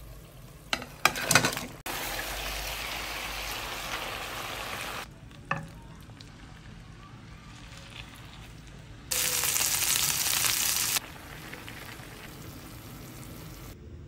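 Food sizzling in hot oil in a frying pan. The hiss comes in blocks that start and stop abruptly, loudest for about two seconds a little past the middle. A few clattering knocks sound near the start.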